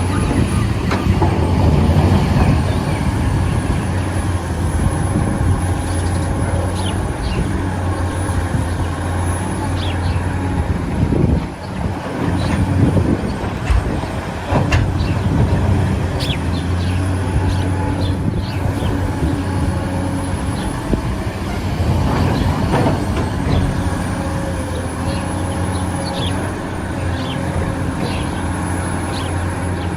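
Steady motor drone with a strong low hum, overlaid with scattered clicks and knocks.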